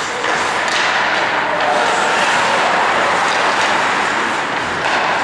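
Ice hockey play on a rink: a steady rush of skates cutting the ice, with a few sharp knocks of sticks and puck.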